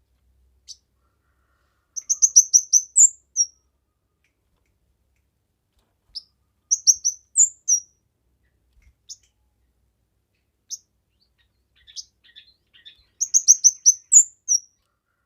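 A kemade songbird singing: short phrases of rapid, very high chirps every few seconds, with single chips in between.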